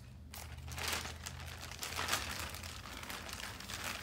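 Plastic bag crinkling and rustling in irregular bursts as hands rummage in it and pull out plastic pin packets.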